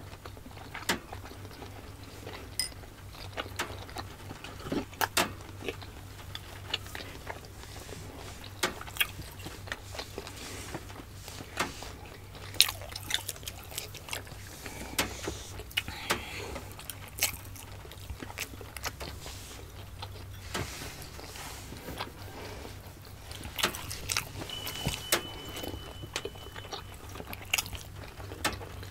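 Close-miked eating sounds: chewing of steamed siomai dumplings, with irregular wet mouth clicks and smacks over a faint steady low hum.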